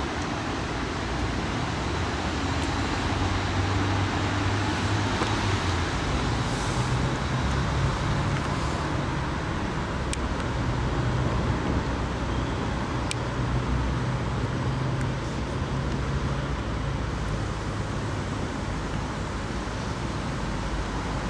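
Steady road traffic noise, a continuous rumble and hiss of passing motor vehicles with engine hum that swells and fades, and a few faint clicks.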